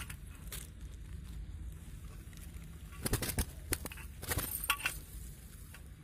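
Rustling and crackling of dry grass and a nylon mist net being handled by hand while a caught quail is worked free, with scattered sharp clicks that come thickest from about three to five seconds in.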